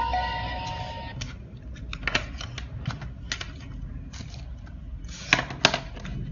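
Scattered light clicks and taps, with two sharper clicks about half a second apart near the end. Background music ends about a second in.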